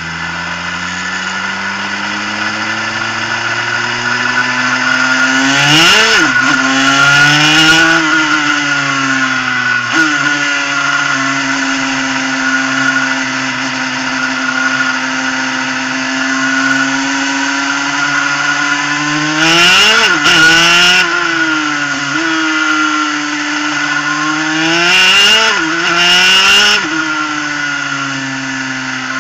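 Superkart's 250cc two-stroke engine heard onboard. It rises in pitch as the kart pulls away, then runs at moderate revs with a few short, louder bursts of throttle that swing the pitch up and down.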